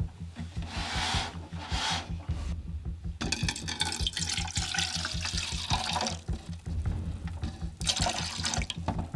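White vinegar poured from a plastic gallon jug into a plastic measuring cup, a stream of liquid splashing in as the cup fills. It comes in spells, with the longest running through the middle.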